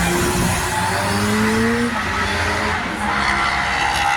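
Classic Honda sports and racing motorcycle engines running on a race track, several at once, with one rising in pitch as it accelerates between about half a second and two seconds in.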